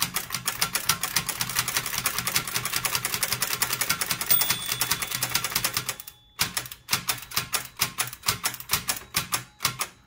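Toshiba BW-3112 Japanese kanji typewriter's escapement clicking in a rapid run as the drawband pulls the carriage along step by step, with the drawband at full tension. The clicks break off briefly about six seconds in, then resume a little more slowly. This is the escapement and carriage working reliably now that the gummy roller and bushing are freed.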